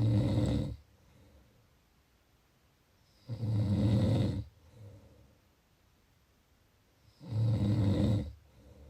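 Snoring: three loud snores about four seconds apart, each lasting about a second and followed by a softer breath.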